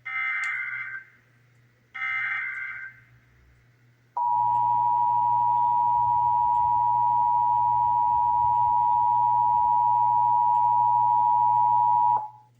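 Emergency Alert System test tones: two one-second bursts of warbling SAME header data tones about a second apart, then about four seconds in the steady two-tone EAS attention signal (853 and 960 Hz) sounds for about eight seconds and cuts off sharply.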